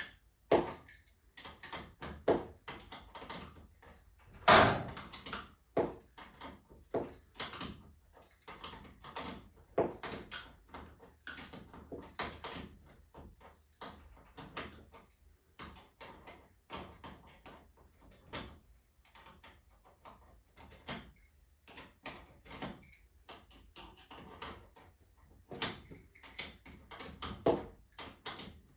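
Irregular metal clanks and knocks from hand tools and hardware on a garage door torsion spring assembly being installed, several a second at times, with the loudest knock about four and a half seconds in.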